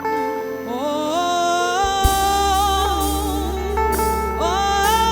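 Gospel praise song: a singer holds long, gliding notes over keyboard and bass accompaniment, with a few cymbal hits.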